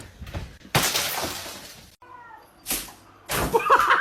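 A cat crying, with short pitched calls near the end, and a sudden loud noisy crash or burst about three quarters of a second in.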